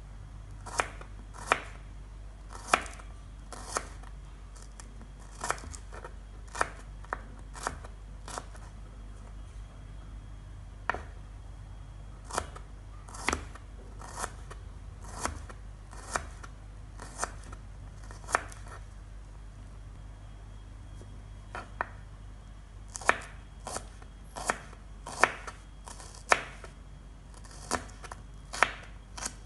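Knife slicing shallots on a wooden cutting board: sharp taps of the blade against the board, irregular at about one a second, with a pause of a few seconds past the middle. A steady low hum runs underneath.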